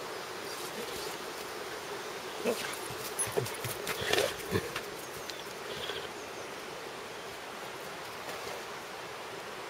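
A steady hum or buzz in the background, with a handful of scuffs and soft thuds of steps on dry dirt and leaf litter between about two and five seconds in.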